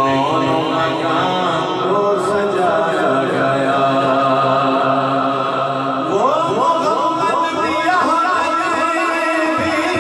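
A man's voice chanting a naat, an Urdu devotional poem, unaccompanied, in long held melodic phrases over a steady low drone. About six seconds in, a new phrase sweeps upward in pitch.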